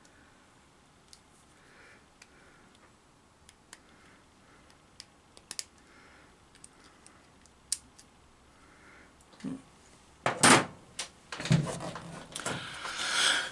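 Small sharp metallic clicks of pliers fitting C-clips onto small shafts, at irregular intervals. About ten seconds in, louder knocks and clatter follow as parts and tools are handled.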